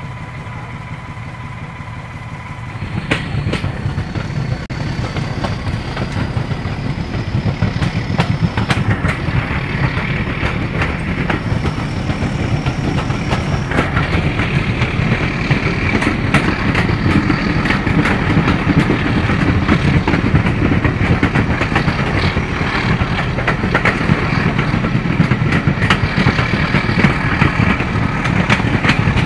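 Diesel locomotive engine running steadily, then opening up about three seconds in and growing gradually louder as it works harder. A faint whine climbs in pitch over the following ten seconds, with scattered clicks and knocks throughout.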